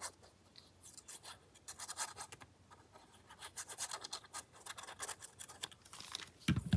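Scratching and rubbing of paper being handled on a craft desk: a run of short, scratchy strokes, with a louder low thump near the end.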